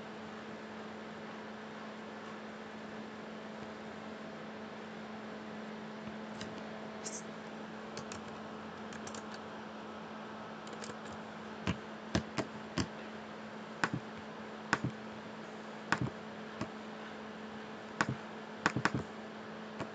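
Computer mouse clicking, about a dozen short, sharp clicks at uneven spacing in the second half, some in quick pairs like double-clicks, over a faint steady electrical hum.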